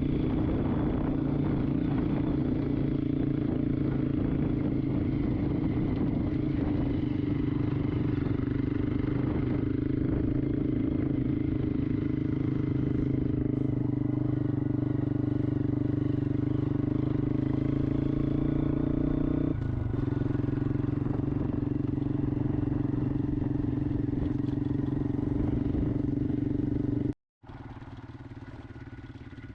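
Motorcycle engine running at a steady speed, with a small drop in pitch about two-thirds of the way through. It cuts off abruptly near the end, and a much quieter sound follows.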